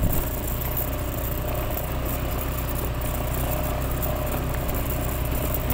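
Motorcycle engine running steadily as the bike rides along a rough mountain track.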